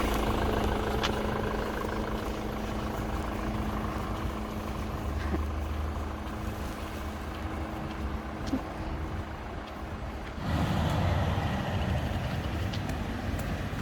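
Truck engine running steadily; about ten seconds in it grows louder and rougher.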